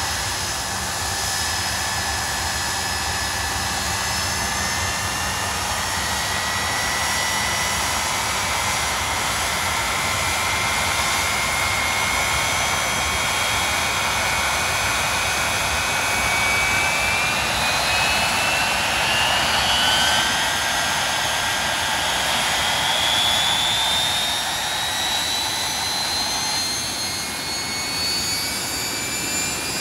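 Blackburn Buccaneer's Rolls-Royce Spey turbofan jet engines running at high power on a ground engine run: a steady rush with a high whine that climbs slowly in pitch, loudest a little past the middle.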